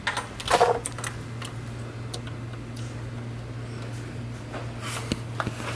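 Scattered light clicks and taps of hands working on car parts, over a steady low hum.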